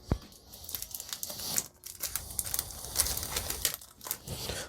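Foil Yu-Gi-Oh! booster pack wrapper crinkling and trading cards being handled: a busy run of quick rustles and small clicks.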